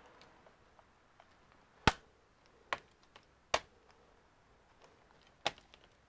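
Bottom-cover clips of a Lenovo ThinkBook 15 Gen 2 laptop snapping loose as the cover is pried off: four sharp clicks, the loudest a little under two seconds in, with a few faint ticks between.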